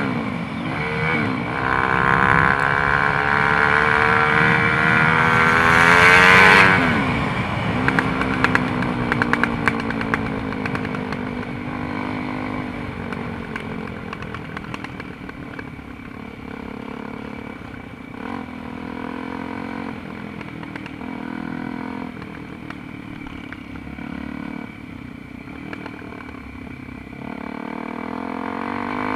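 Dirt bike engine under way: revs climb for about six seconds, drop sharply, then settle to a lower, steadier run with some rattling clicks, and rise again near the end.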